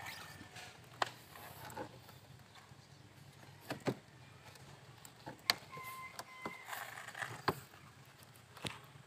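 Rubber door weatherstrip of a Suzuki Celerio being pressed back onto the door-frame flange by hand, with a few scattered sharp clicks and taps.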